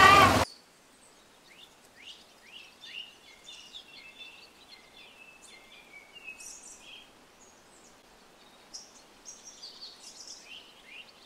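Small birds chirping and trilling faintly in scattered short calls. Before them, a loud pitched call with several tones cuts off abruptly about half a second in.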